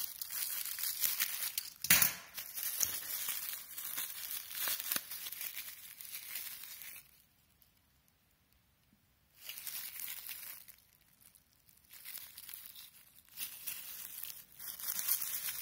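Thin plastic packaging bag crinkling and tearing as it is opened and handled, with a sharp snap about two seconds in and a quiet pause in the middle.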